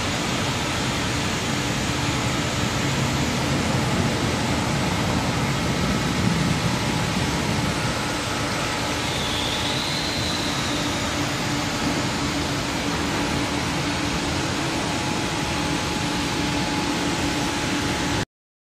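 Aschersleben SZ 2000x1500x9000 guideway grinding machine running: a steady mechanical hum with an even hiss. It cuts off abruptly near the end.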